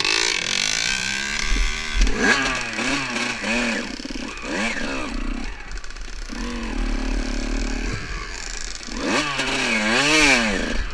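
Dirt bike engine revving, its pitch climbing and falling again several times as the throttle is opened and closed while riding a trail.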